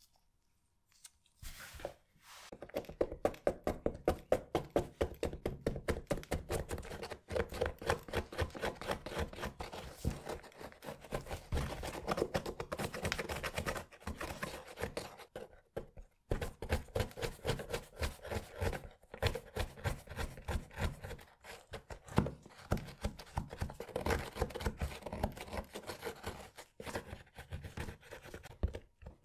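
Rapid, repeated scrubbing or scraping strokes on a muddy sneaker, several a second, with a short pause about sixteen seconds in.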